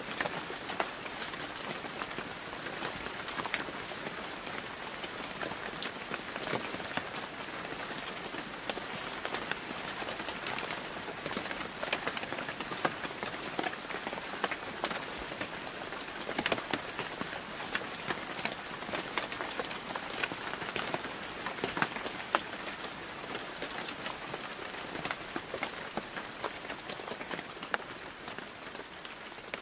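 Steady rain falling on wet pavement, a continuous hiss dotted with many sharp ticks of single drops close by, growing quieter near the end.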